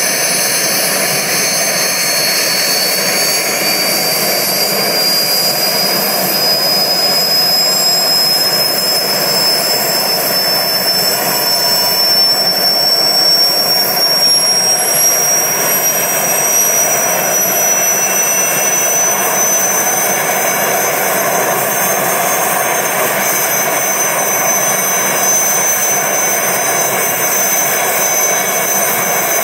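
Aérospatiale SA 315B Lama helicopter running on the ground, its Turbomeca Artouste turboshaft giving a loud, steady turbine noise with a high whine that rises slowly in pitch, rotor turning.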